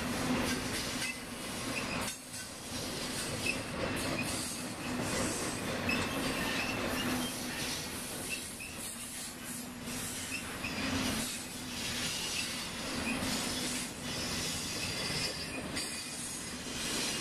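Double-stack container train's well cars rolling past, with steel wheels clacking over the rail and short wheel squeals.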